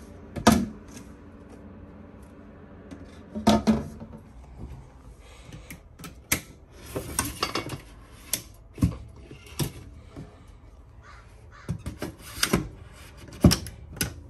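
A series of sharp knocks and clicks from handling kitchen fittings: the cover board on the stainless sink being moved, then a pop-up countertop power outlet being pulled up and pushed back down into the counter.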